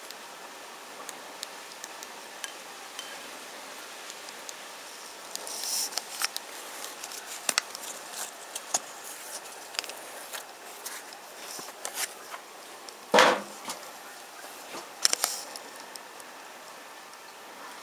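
Close handling of a knife and its leather sheath: small clicks, taps and rustles of hands on the metal bolster and sheath, with a louder scrape about two-thirds of the way through as the blade comes out.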